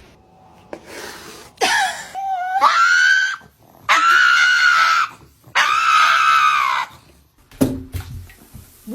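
Three long, high-pitched screams in a row, the first bending down and up in pitch, the next two held steady.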